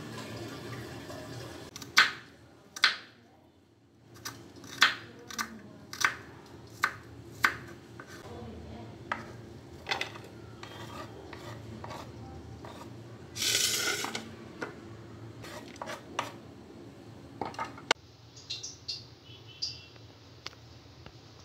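Kitchen knife knocking on a wooden cutting board while slicing onion, irregular sharp knocks about once a second, with a short scrape of the blade near the middle as the slices are pushed off the board. Near the end, light ticks of a spoon against a small container.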